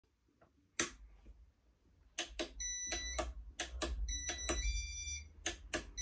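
Casablanca California Zephyr ceiling fan in demo mode: a series of sharp clicks with electronic beeping tones that change pitch, over a low motor hum that starts about two seconds in.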